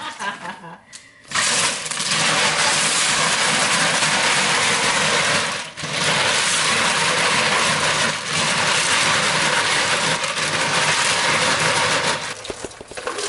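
Kitchen faucet running hard into a plastic bucket in a stainless sink while hands work the contents, a steady rush of water. It starts about a second in, breaks briefly midway, and stops near the end.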